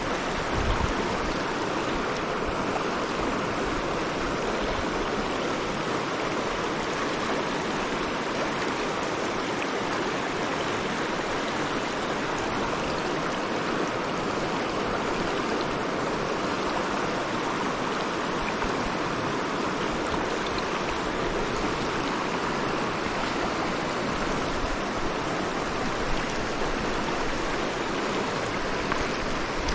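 Shallow, rocky river rushing over riffles and small rapids: a steady, unbroken rush of water.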